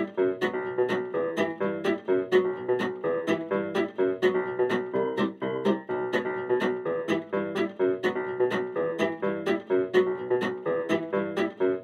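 Background music with a steady beat, led by plucked guitar.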